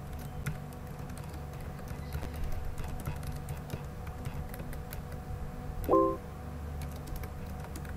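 Typing on a computer keyboard, faint scattered clicks over a steady low hum, with a short beep-like tone about six seconds in.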